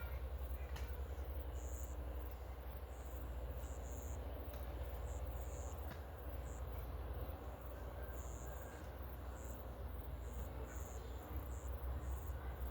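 Outdoor ambience: short high chirps of insects coming and going about once a second over a low steady rumble.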